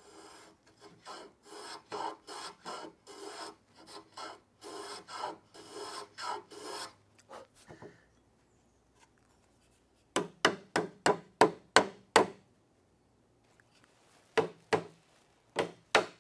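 Rabbet block plane cutting a chamfer along a tenon shoulder: a quick run of short rasping strokes, about two a second. After a pause comes a rapid run of sharp wooden knocks, and a shorter one near the end, as the rail's tenon is tried against the curved leg's mortise.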